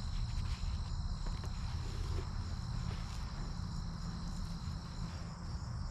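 Hands rummaging through dry soil for potatoes, with faint scattered rustles and scrapes, over a low rumble. A steady high-pitched cricket trill runs behind, and its lowest tone drops out about five seconds in.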